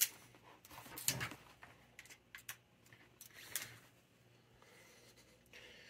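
A sharp click, then a few lighter clicks and taps of small objects being handled.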